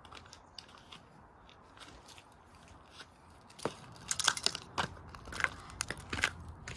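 Plastic housing of a Sylvania alarm clock radio cracking and crunching as it is broken apart. A few faint clicks come first, then a run of sharp cracks starts about three and a half seconds in.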